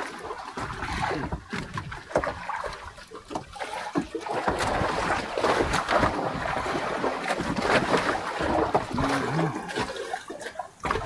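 Sea water splashing and sloshing around a small fishing boat, with scattered sharp knocks and clatters.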